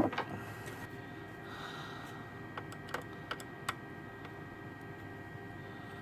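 Light clicks and taps of a small screwdriver and bit on the graphics card's hardware, a few scattered ticks over a faint steady hum.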